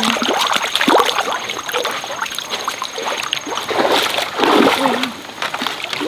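Water splashing and sloshing in irregular bursts, as in wading or working in a stream.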